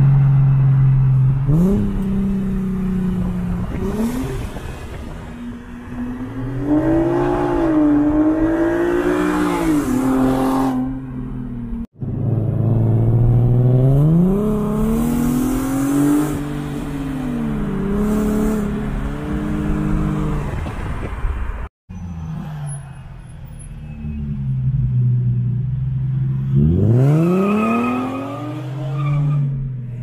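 An Infiniti G37x sedan's 3.7-litre V6 with ISR test pipes and a custom single-exit exhaust, accelerating on rolls. The engine note climbs in pitch and falls back again several times, with steadier running in between.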